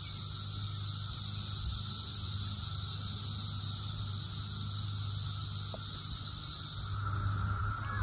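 Steady, high-pitched droning chorus of Brood X periodic cicadas, with the balance of pitches shifting about seven seconds in.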